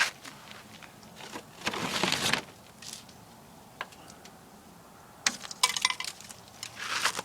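Hands working a window piece loose from the tipi frame: sharp clicks and clinks, with two short scraping rustles, one about two seconds in and one near the end.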